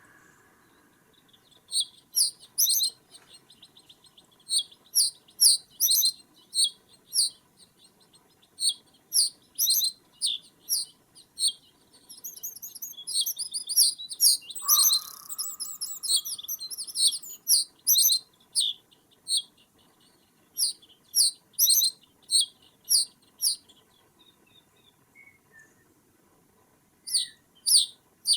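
Small songbirds giving sharp, high chirps, one or two a second, with a stretch of faster twittering in the middle and a single lower call about halfway through.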